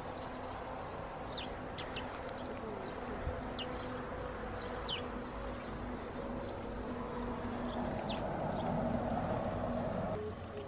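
Outdoor countryside ambience: a steady low hum or buzz, with short high chirps of small birds scattered throughout.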